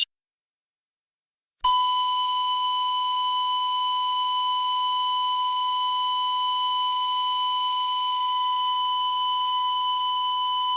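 Dental X-ray machine beep: after about a second and a half of silence, one long steady beep starts suddenly and holds unchanged. It is the warning tone a dental X-ray unit sounds while the exposure is being made.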